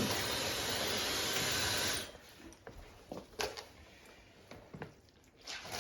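Handheld hair dryer blowing a steady hiss of air, used to melt ice in a freezer, switched off suddenly about two seconds in; a few faint knocks and clicks of handling follow.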